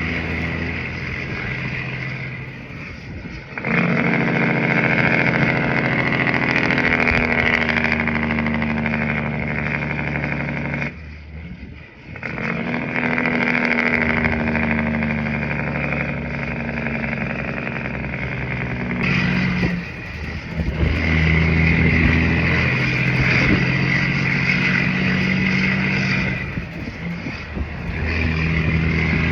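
Heavy-haul semi truck's diesel engine pulling a loaded trailer down the road. The steady engine drone eases off briefly four times, about every seven or eight seconds, and each time picks up again at a new pitch, as it does at gear shifts.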